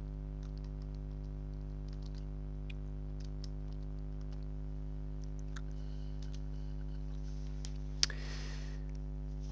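Sparse, light keyboard typing clicks as a search term is typed, over a steady low hum. About eight seconds in, one louder click is followed by a short noisy rush.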